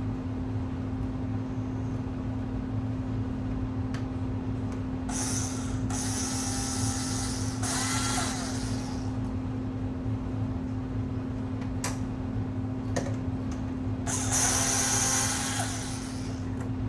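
Power drill/driver running in three short bursts, about five seconds in, near eight seconds with a rising and falling whine, and a longer run near the end, as screws are driven out of a car speaker box. A few sharp clicks fall between the bursts, over a steady low hum.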